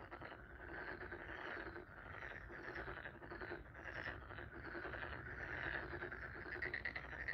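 A chorus of repeated animal calls, short overlapping calls coming about twice a second.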